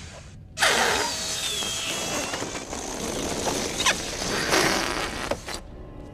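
Cartoon sound effect of an enormous fart, the punchline to "pull my finger": a loud rushing blast that starts suddenly about half a second in, with a few sharp cracks in it, and cuts off abruptly about five seconds later.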